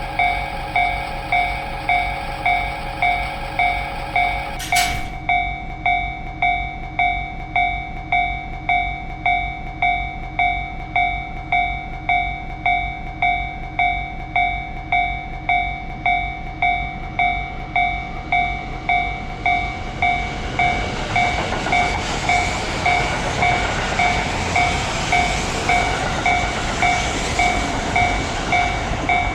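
Japanese railway level-crossing alarm bell ringing steadily, about three rings every two seconds, with a sharp click about five seconds in. From about two-thirds of the way through, a train runs past over the crossing, loudest near the end.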